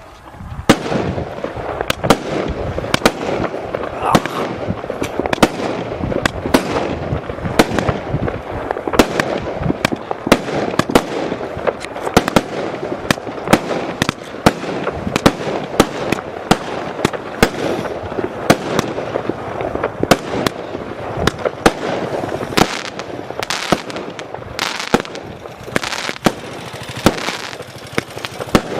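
Primed 'Full House' firework cake firing continuously: a dense, irregular string of sharp bangs, several a second, over a steady rushing noise.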